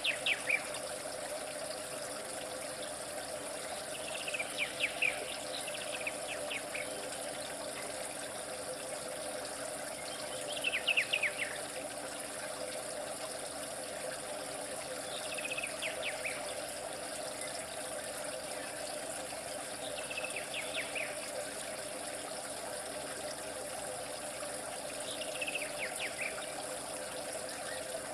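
Steady trickling water with a bird calling over it: short bursts of quick descending notes, repeating about every five seconds.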